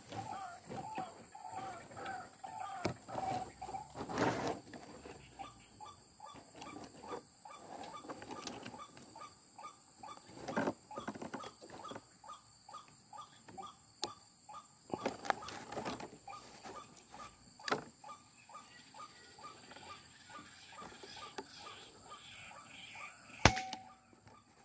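Birds calling in a rapid repeated series of short notes, over a steady high insect drone, with scattered faint clicks and rustles. A single sharp crack comes near the end and is the loudest sound.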